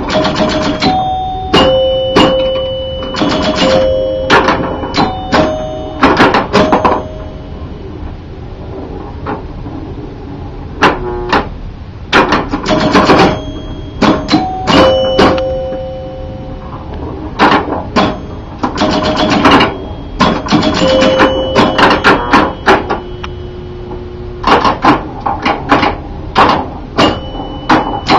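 1977 Gottlieb Jungle Queen electromechanical pinball machine in play: its chime bells ring in quick clusters over the clicking and clacking of its playfield mechanisms, with a quieter stretch about eight to eleven seconds in.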